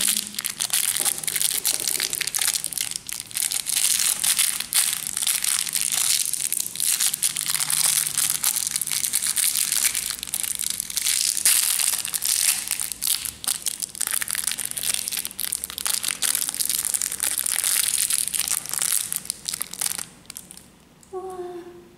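Thin clear plastic candy bag being crinkled and pulled open by hand, with continuous crackling plastic that stops about two seconds before the end.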